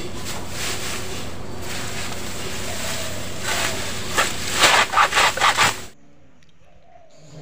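Hand-lever straw chopper cutting straw: a quick run of sharp chopping strokes starting about three and a half seconds in, over a steady background hiss. The sound cuts off suddenly near the end.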